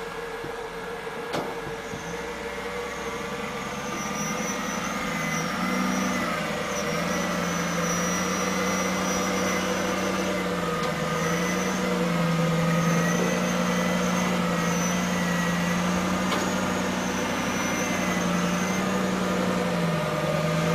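Land Rover Discovery's 4.2 V8 engine with a straight exhaust running under load, its pitch rising and falling repeatedly as the revs change.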